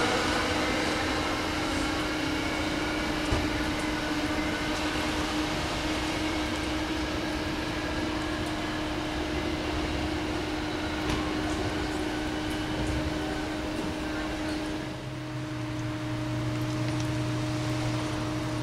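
Electric train running with a steady electrical hum and blower noise; a faint whine rises in pitch in the first few seconds, and a deeper hum joins about fifteen seconds in.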